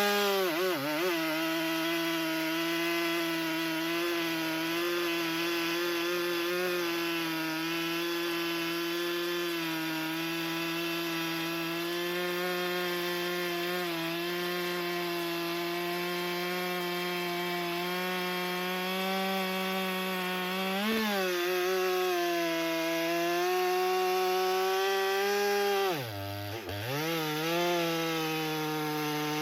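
Stihl MS 462 two-stroke chainsaw cutting through a large log round, its engine held steady under load. Its revs dip sharply and pick up again near the end.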